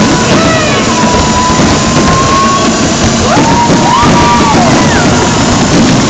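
Loud music from the fireworks show's sound system, with a gliding melody line over a dense, steady wash of crowd noise; no separate firework bangs stand out.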